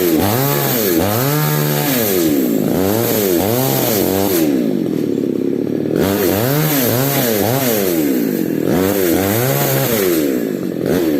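Falcon mini chainsaw's small engine revving up and down in quick swells while cutting into mango wood, easing off briefly twice before picking up again.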